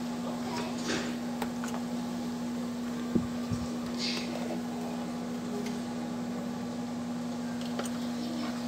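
A steady low hum from a kitchen appliance, with a few light clicks and knocks of a spoon scooping seasoning out of a food processor bowl. The loudest knock comes about three seconds in.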